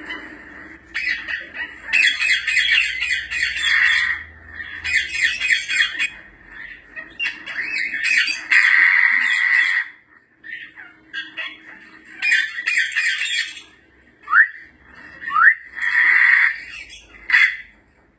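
African grey parrots calling: a run of harsh squawks and screeches, with two short rising whistles about three-quarters of the way through, then more squawks.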